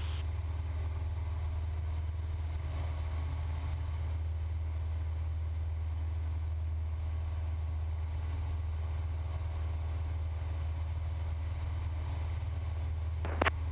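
Steady low drone of a Cessna 172's piston engine and propeller in flight, heard in the cockpit. Two sharp clicks come near the end.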